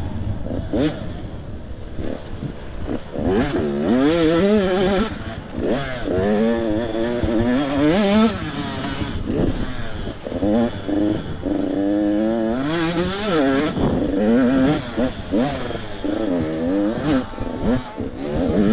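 Motocross bike engines revving hard, the pitch repeatedly climbing and dropping as the riders work the throttle and shift through the gears.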